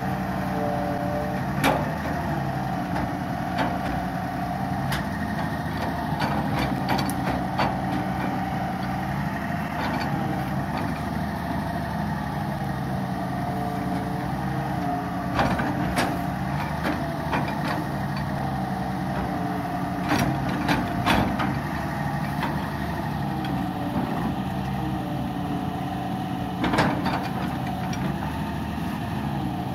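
Hitachi EX200 long-reach excavator's diesel engine running steadily, its pitch wavering as the arm works, with occasional sharp knocks from the bucket and arm digging the ditch bank.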